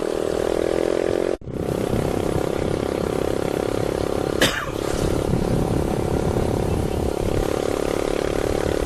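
Yamaha YBR 125 motorcycle's single-cylinder engine running steadily at cruising speed, with road and wind noise. The sound cuts out for a moment about a second and a half in, and there is a brief whoosh about four and a half seconds in.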